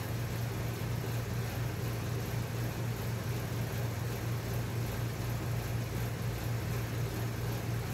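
A steady low hum under an even hiss, unchanging throughout: constant background noise with no distinct events.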